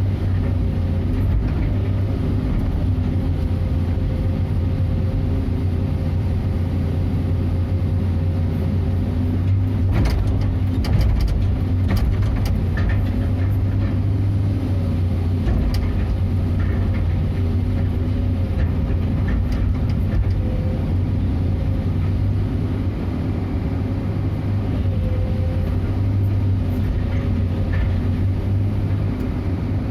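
Excavator's diesel engine running steadily, heard from inside the cab: a low drone with a fainter tone above it that wavers a little as the machine works. A few short knocks and clicks come about ten seconds in and again later.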